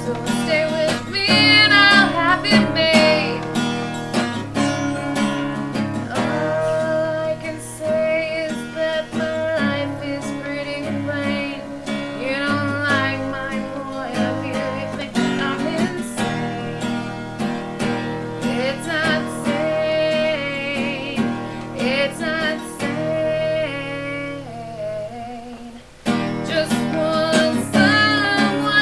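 Music: a strummed acoustic guitar with a voice singing over it. The music thins out and drops away about 25 seconds in, then comes back loud at once.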